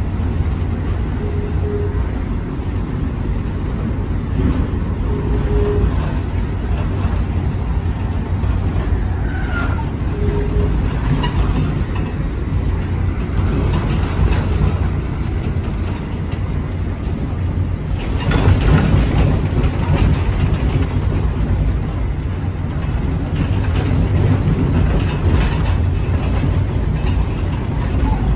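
Steady low rumble of an Amtrak Northeast Regional passenger car running at speed, heard from inside the car, growing somewhat louder about two-thirds of the way through.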